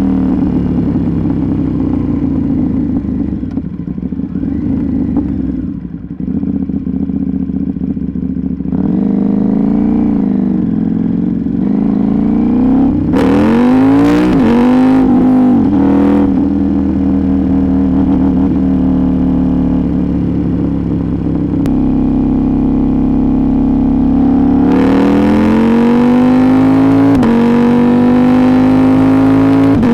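KTM 790 Duke's 799 cc parallel-twin engine through an Arrow GP2 exhaust with the catalyst removed, running under way. The note drops off early, rises in several quick pulls around the middle, holds a steady pitch, then climbs again and settles near the end.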